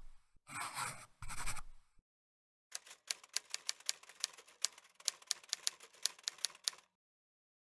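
Two short scratchy swishes, then a typewriter sound effect clicking rapidly for about four seconds, like keys being struck, stopping shortly before the end.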